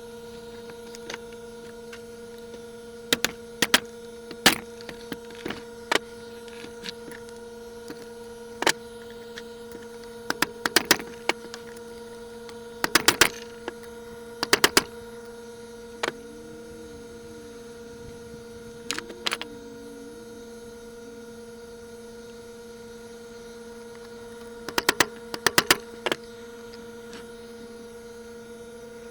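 Steady electrical hum with scattered sharp metallic clicks and clinks of hand tools and engine parts being handled, some single and some in quick clusters of three or four.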